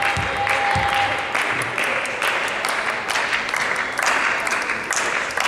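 Spectators clapping in rhythm, about twice a second, with voices chanting along, echoing in a large sports hall.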